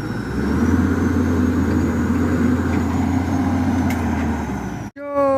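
Diesel engine of a Hyundai Robex 220-7 excavator running steadily. It gets louder about half a second in and cuts out abruptly near the end.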